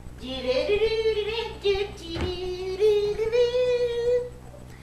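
A woman singing long, drawn-out notes in a single voice, with a brief knock about two seconds in.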